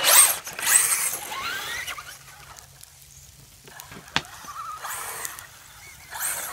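Hobby-grade RC trucks driving fast: motors whining and gliding up and down in pitch as they accelerate, with loud bursts of tyre and gravel noise at the start, about a second in, near five seconds and at the end. A single sharp click comes about four seconds in.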